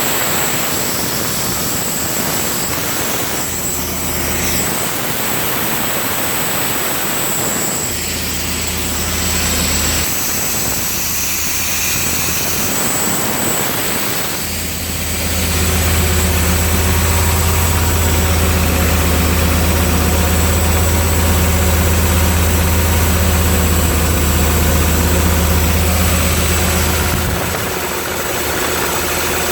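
Carbureted gas engine of an engine-driven air compressor running steadily. Its low hum shifts in level a few times, and is loudest and steadiest from about halfway through until just before the end, when it drops back.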